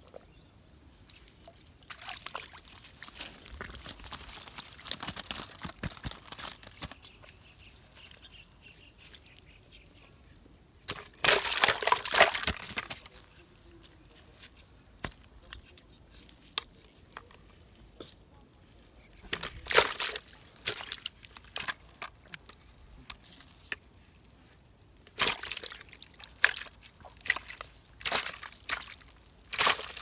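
Water splashing and sloshing in irregular bursts, loudest for about two seconds near the middle, as a freshly caught fish thrashes and is handled over a bucket of water.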